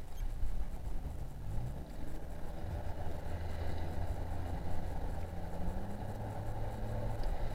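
Outboard motor of an inflatable coach boat running at low speed, its hum rising a little in pitch about two seconds in, over a steady wash of water and wind noise.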